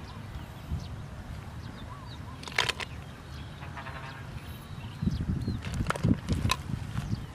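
Outdoor ambience with birds chirping, a few sharp snaps, and rustling of plants being handled and picked from about five seconds in.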